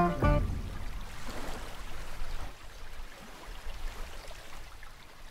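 Shallow mountain stream running over rocks, a steady rush of water that slowly fades. The last chord of banjo music dies away in the first moment.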